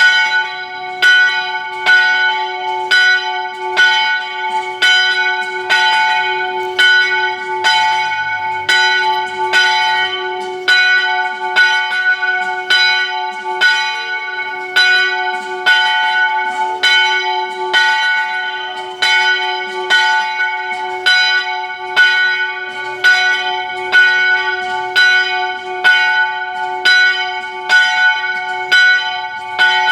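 A single French church bell of about 150 kg tolling steadily, about one stroke a second, each stroke ringing on into the next.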